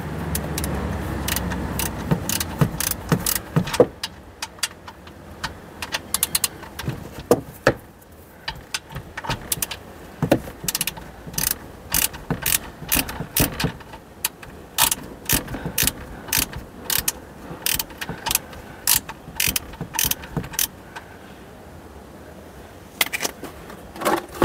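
Ratchet clicking in irregular bursts as a 17mm socket on a ratchet backs out a stiff sump plug from the oil pan.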